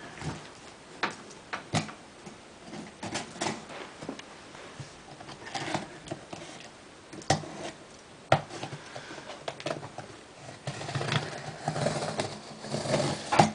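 A cardboard computer-case box being opened and its packaging handled: scattered knocks and clicks with stretches of rustling and scraping.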